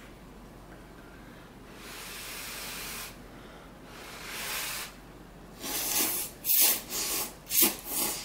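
A person blowing twice on hot instant ramen noodles held up on chopsticks, each a breathy hiss lasting about a second. From about two-thirds of the way through come a series of short, louder slurps as the noodles are sucked in.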